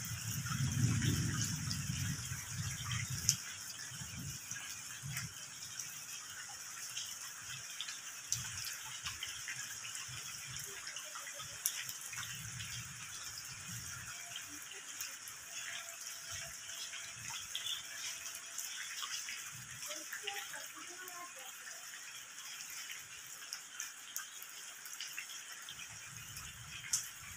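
Steady rain falling, a continuous hiss with scattered drips. A low rumble near the start.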